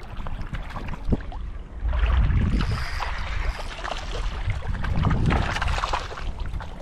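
Shallow seawater sloshing and splashing over a low rumble, louder from about two seconds in.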